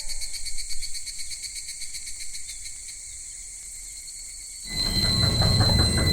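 Insects chirping in a high, pulsing drone. About four and a half seconds in, a train suddenly comes through the level crossing with a loud low rumble and a fast, regular clatter.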